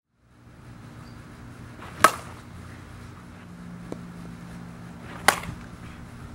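Softball bat hitting the ball twice, about three seconds apart, each a sharp hit with a short ring, over a steady low outdoor hum.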